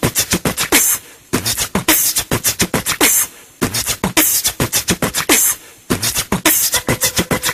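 Beatboxing: rapid vocal percussion made with the mouth, a fast rhythm of clicks, thumps and hisses broken by short pauses every couple of seconds.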